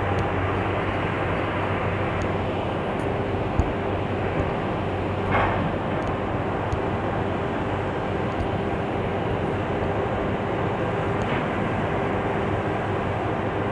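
CC206 diesel-electric locomotive's V8 diesel engine running with a steady low drone. Two short higher-pitched sounds break through, about five and eleven seconds in.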